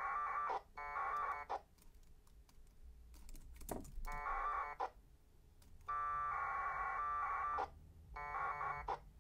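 Bursts of 1200-baud AFSK packet radio data tones from the radio's speaker, a few short warbling bursts with the longest, about a second and a half, near the end: AX.25 frames and acknowledgements going back and forth with a BBS node. A few keyboard clicks between the bursts, about three seconds in.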